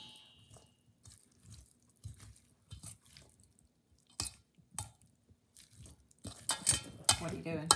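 Metal utensil stirring corn salad in a creamy dressing in a stainless steel mixing bowl: scattered light clinks and soft wet scrapes against the bowl, getting busier near the end.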